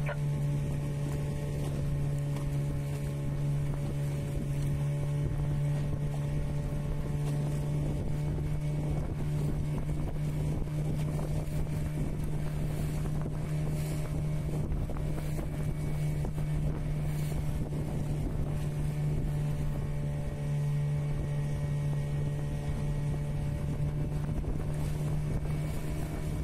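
Fishing boat's engine running steadily at one unchanging pitch while the boat is under way on open sea, with wind and water noise underneath.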